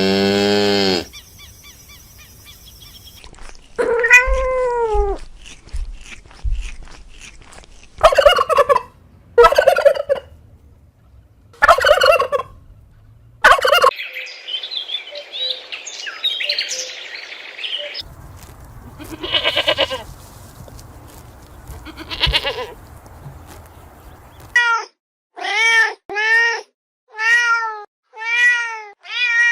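Animal calls from a run of different animals, one after another: a series of short separate calls, a stretch of chattering, then about six evenly spaced rising-and-falling calls near the end.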